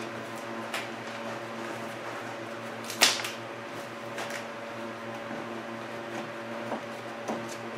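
Squeegee working a vinyl wrap onto a car door: scattered short taps and scrapes, the sharpest about three seconds in, over a steady hum.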